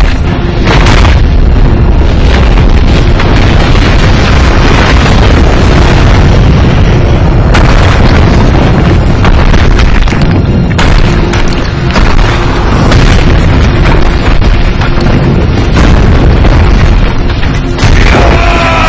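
Film sound effects of giant stone breaking apart: a continuous, loud booming rumble of crashing and shattering rock, layered with music. A held pitched tone comes in near the end.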